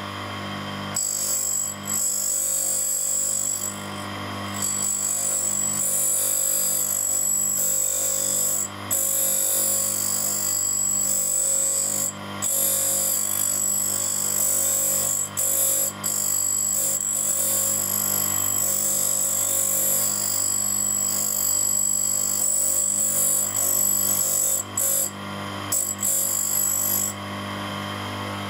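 Cup-style grinding wheel running with a steady motor hum while a hex screwdriver bit is fed against its rim, giving a loud, high-pitched hissing grind that starts about a second in and breaks off briefly several times as the bit is passed across the wheel. The worn, rounded tip of the bit is being reground to restore sharp edges.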